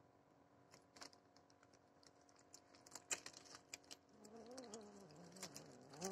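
A tabby cat holding raw meat in its mouth gives a low, wavering growl starting about four seconds in, over scattered small clicks.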